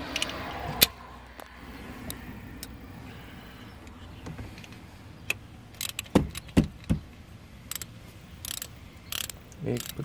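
A ratchet wrench with a socket extension being handled, metal tools clinking and knocking, with a few heavier knocks just past the middle and scattered light clicks near the end.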